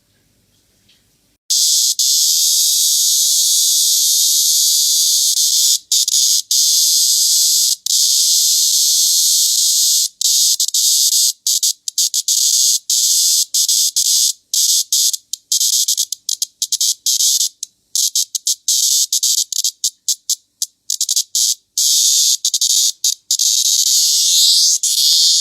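Cryptotympana gracilis cicada singing: a loud, shrill, continuous buzz starts about a second and a half in. From about halfway it breaks into a stuttering run of buzzes separated by brief gaps, and it cuts off suddenly.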